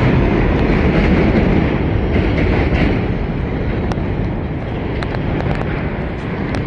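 New York City subway train running, a loud steady rumble and rattle that eases a little about halfway through, with a few faint clicks.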